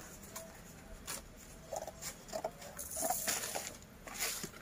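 Cardboard being handled: irregular scraping and rustling as a cut cardboard collar is fitted around the stems of a potted plant.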